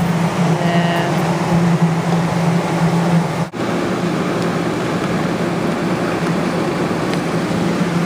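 Steady indoor store ambience: a constant low hum from running machines and air handling under an even wash of background noise, with a brief dropout about three and a half seconds in.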